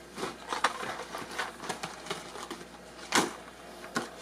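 Plastic lure packaging and a cardboard box being handled: irregular rustling and light clicks, with a sharper click about three seconds in.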